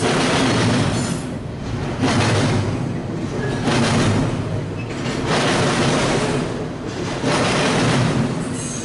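Double-stack intermodal freight train passing close by, its well cars' wheels rumbling and clattering along the rails. The noise swells and eases about every second and a half.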